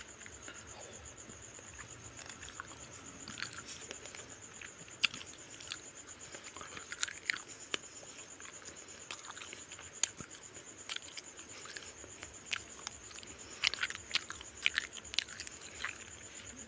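Close-up mouth sounds of a person chewing fish curry and rice: wet chewing with scattered lip smacks and small clicks, more frequent in the second half. A steady high-pitched whine runs underneath.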